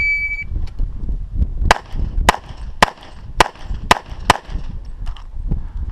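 A shot timer beeps once, then, a little under two seconds later, an EAA/Tanfoglio Witness Elite Match pistol in .40 S&W fires six shots about half a second apart.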